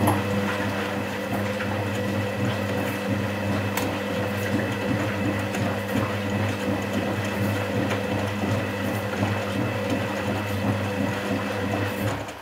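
Constructa Contura washing machine running early in its 60 °C cotton/coloureds cycle: a steady low mechanical hum with a rough, rattly texture that cuts off abruptly just before the end.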